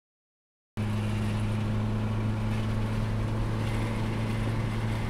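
Mitsubishi Lancer Evolution VIII's turbocharged 2.0-litre four-cylinder engine, its JDL O2 dump tube open, running at a steady low rpm and heard from inside the cabin. The sound starts abruptly under a second in and holds an even, unchanging drone with no rev build.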